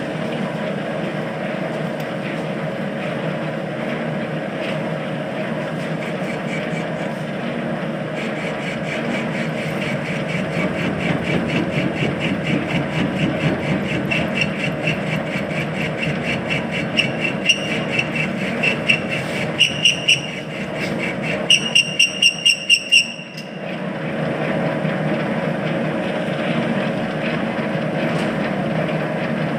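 Lathe running steadily while turning a workpiece. A high-pitched ringing squeal from the cutting tool pulses in, grows, comes in short repeated bursts, then stops about 23 seconds in while the machine keeps running.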